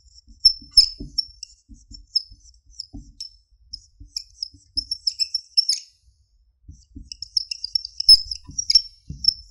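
Whiteboard marker squeaking against the board in quick short strokes as characters are written, with a brief pause about two-thirds of the way through before the strokes resume.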